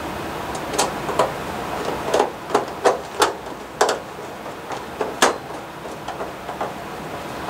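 Hand screwdriver driving a screw into the sheet-metal junction box cover of a baseboard heater: a string of sharp, irregular metallic clicks and scrapes, thinning out after about five seconds.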